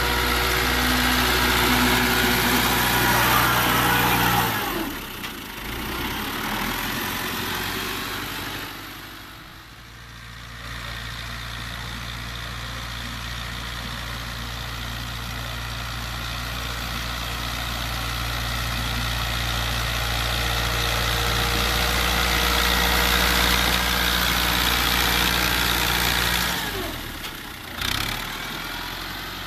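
Fiat 640 tractor's four-cylinder diesel engine running steadily as it works a front blade pushing sand. The steady note breaks off and changes abruptly a few times, about five seconds in, around ten seconds in and near the end.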